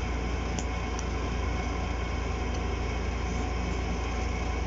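Steady low background hum and hiss of room noise, with a few faint soft ticks as the cards are handled.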